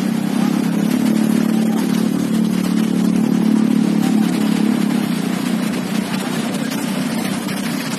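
Slow road traffic with a truck engine running close by, loudest about three to four seconds in and easing off after about five seconds.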